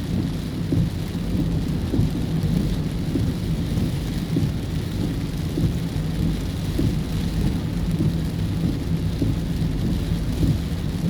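Heavy rain on a car, heard from inside the cabin, over a steady low rumble from the car running.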